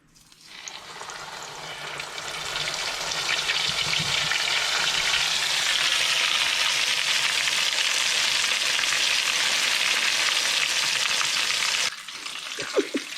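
Hot cooking oil sizzling and crackling hard, as in deep-frying a breaded crappie. The sizzle swells over the first couple of seconds, holds steady and loud, then drops off suddenly about twelve seconds in.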